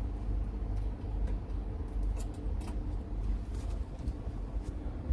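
A few faint, light metal clicks as the change key is fitted into a LaGard four-wheel combination lock, over a steady low hum.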